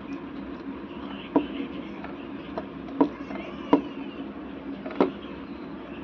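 Sharp clicks and taps of a small plastic wire connector being handled and pushed onto an amplifier circuit board's input header: a handful of clicks, four of them louder, a second or so apart, over a faint steady hum.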